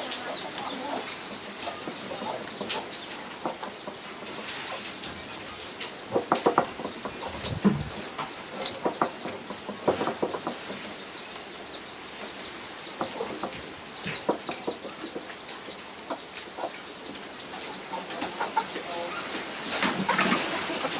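Many short, high-pitched animal chirps and clucking calls, with a few sharp knocks in among them.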